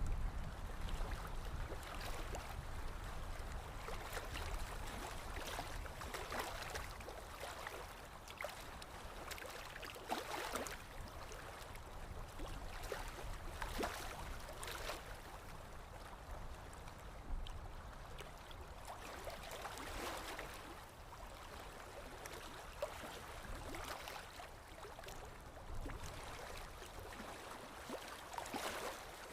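Running water, a stream flowing steadily, with irregular louder surges every few seconds.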